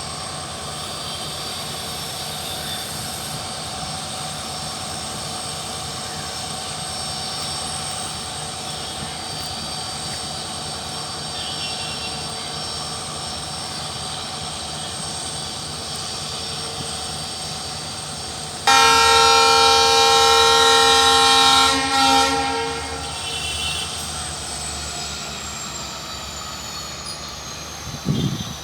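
WDP-4D diesel-electric locomotive with an EMD 16-cylinder two-stroke engine running with a steady hum and a high whine. About two-thirds of the way through, its horn sounds loudly for about three seconds, then the steady hum returns while the high whine slowly falls in pitch near the end.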